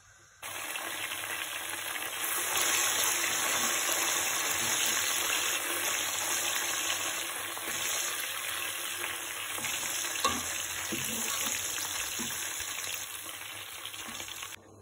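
Almonds sizzling as they fry in hot oil in a pan, stirred with a slotted spoon, with a few light knocks of the spoon against the pan around ten to twelve seconds in. The sizzle starts abruptly about half a second in and cuts off just before the end.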